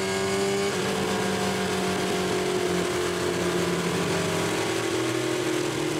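Honda CBR954RR's inline-four engine, freshly overhauled after 150,000 km, running at a steady speed, its pitch easing slightly lower over the seconds.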